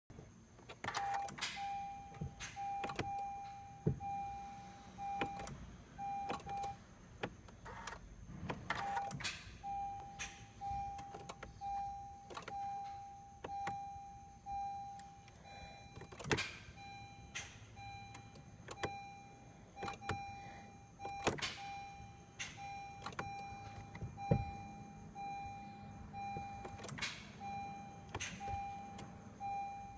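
Attempts to start a 2013 Honda Accord LX that won't start: sharp clicks and brief whirring bursts that die out each time without the engine catching, over the car's warning chime beeping steadily, about one and a half beeps a second.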